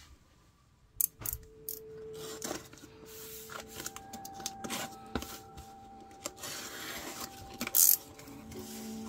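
Cardboard shipping mailer being handled and opened by gloved hands: rubbing and scuffing of the cardboard with scattered clicks, and a short, loud rasping scrape near the end as the box is pulled open. Soft, slow background music with held notes runs underneath.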